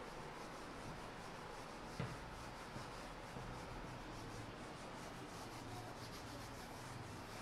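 Faint scratching and rubbing of handwriting strokes, with one light tap about two seconds in.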